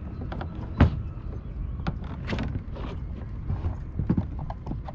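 Irregular knocks and clicks as a pike is handled against the side of a plastic fishing kayak, with a single loud knock about a second in, over a steady low rumble.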